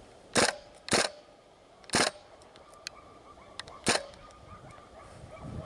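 WE gas-blowback M16A1 airsoft rifle firing four single shots, each a short sharp report, at uneven intervals: two close together, a third about a second later and the last about two seconds after that.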